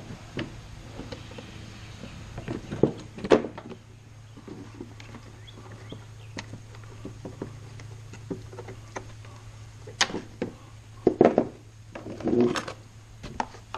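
Scattered clinks and knocks of hand-handled metal parts: a zero-turn mower's discharge chute with its spring and hinge pin being worked into place, the loudest knocks coming in a cluster near the end. A steady low hum runs underneath.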